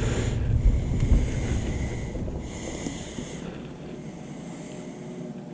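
Wind rumbling on the microphone, strongest in the first few seconds and then easing off, with a couple of light knocks near the start.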